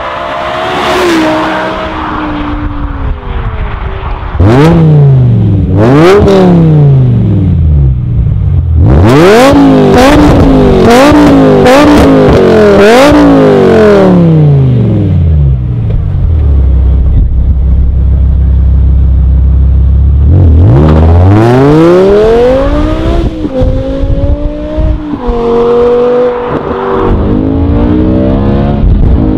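V10-engined BMW 1 Series Coupe: it drives past with the engine note falling, then blips its throttle about seven times in quick succession through the quad exhaust. It settles to a steady low idle, revs up again, and then accelerates through the gears with stepped changes in pitch.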